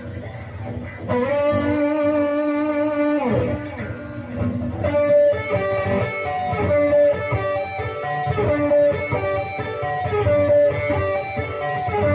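Electric guitar playing a lead melody: one long held note that bends downward about three seconds in, then a run of single sustained notes.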